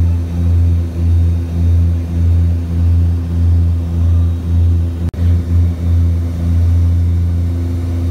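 Propeller airplane engines droning in the cabin in flight, a steady low hum that swells and fades about once a second, the beat typical of two propellers turning slightly out of step. A brief dropout comes about five seconds in, and the drone runs more evenly after it.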